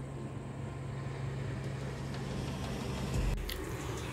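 Motor vehicle engine on the road, a steady low hum that grows louder, reaching a low thump about three seconds in before cutting off abruptly.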